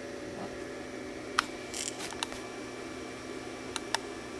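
A steady low hum with a few faint, short clicks and a brief soft rustle, likely small handling noises on the workbench.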